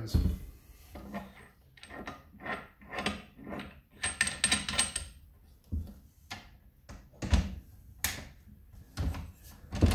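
Handling noises from a Wahoo Kickr Snap bike trainer as its clamp-width adjuster is given a couple more turns and the bike's rear hub is worked in the clamp. There is a run of short scraping, rubbing strokes about twice a second over the first half, then a few sharp knocks.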